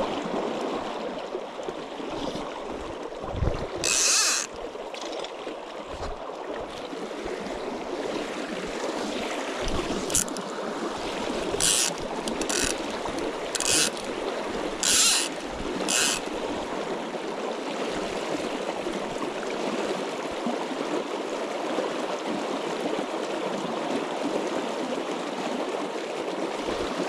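River water flowing steadily, with several brief hissing swishes between about 4 and 16 seconds in.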